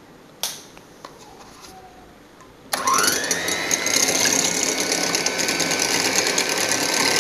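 Electric hand mixer switched on about two-thirds of the way in, its motor whining up in pitch to speed and then running steadily as its beaters whisk raw eggs. A single short knock comes about half a second in.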